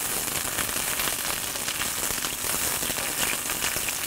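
Freshly added sliced onions sizzling in hot olive oil in a cast iron skillet: a steady crackling hiss as the raw onions cook off their water.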